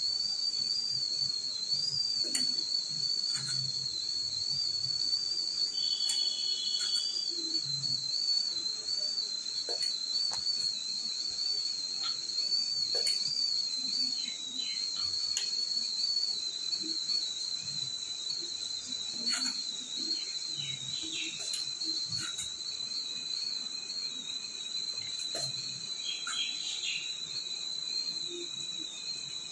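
A steady high whistle that wavers slightly and drifts a little lower in pitch, with scattered light clinks of a spoon against steel idli mould plates as batter is spooned into the cups.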